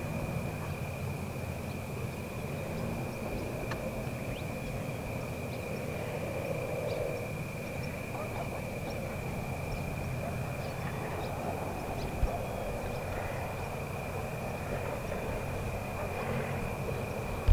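Outdoor evening ambience: a steady, unbroken high-pitched insect chorus over a constant low rumble, with a faint click about twelve seconds in.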